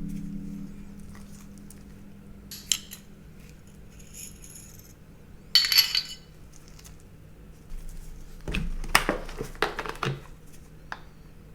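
Metal parts of a CZ Shadow 2 pistol clicking and clinking as they are handled during disassembly and cleaning: a single light click, a brighter cluster of clinks about halfway, and a run of knocks and clicks later on.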